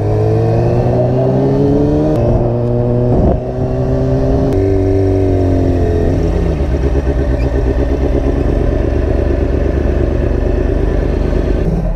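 Sport motorcycle engine running under way, its pitch shifting, with a brief dip in level a little over three seconds in. About halfway through it drops to low, uneven revs as the bike slows into a parking lot.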